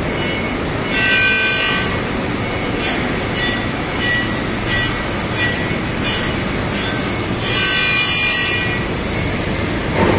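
Five-axis grinding machine fettling a cast engine cylinder head: a steady, loud grinding noise with a high metallic squeal that swells and fades as the wheel works the casting, and regular short clicks.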